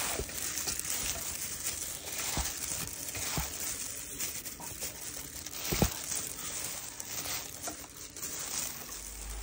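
Japchae being tossed by hand in a stainless steel bowl: wet glass noodles and vegetables squishing and the plastic glove crinkling, with a few light knocks, the sharpest about six seconds in.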